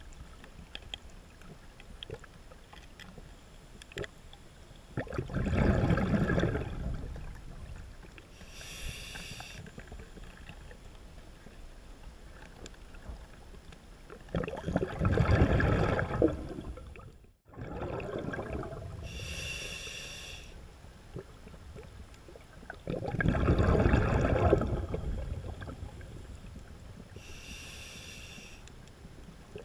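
Scuba diver breathing through a regulator underwater: three exhalations, each a rumbling burst of bubbles about two seconds long, and each followed a few seconds later by a shorter, higher hissing inhalation, about one breath every nine seconds.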